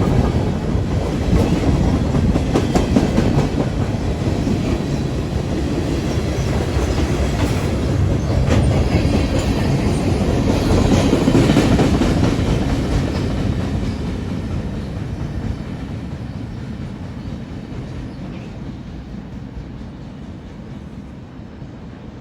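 Freight train cars rolling past on the rails, the wheels clacking over the rail joints. The sound grows fainter over the second half as the train moves away.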